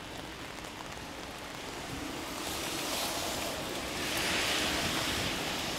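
Wind gusting over the microphone through steady rain, a rushing noise that swells about two seconds in and is loudest near the end.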